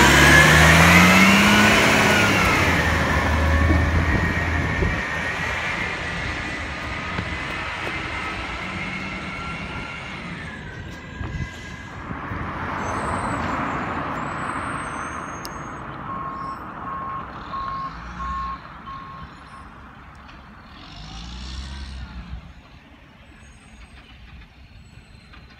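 Garbage truck's diesel engine revving, its pitch rising at the start, then growing steadily fainter as the truck moves off. Four short, evenly spaced beeps sound about two-thirds of the way through, and the engine rises briefly once more near the end.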